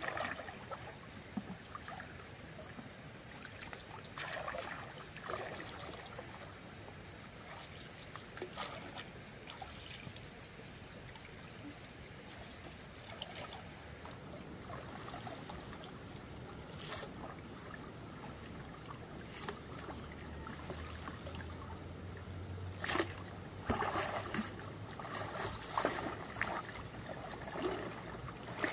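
Shallow water splashing and trickling, as if being waded through or scooped, with scattered short splashes and knocks that come thicker and sharper near the end.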